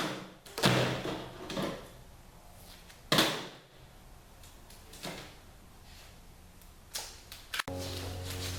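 Duct tape being pulled off the roll and torn into pieces: several short, sharp rips a second or two apart. Near the end it cuts to background music.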